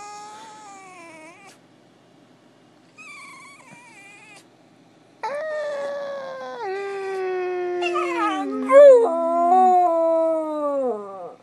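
Puppy howling: a faint howl, a short one, then a long, louder howl from about five seconds in whose pitch drops in steps.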